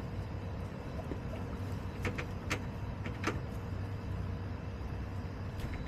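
Chickens pecking and scratching in wood-chip litter, a few sharp clicks over a steady low rumble.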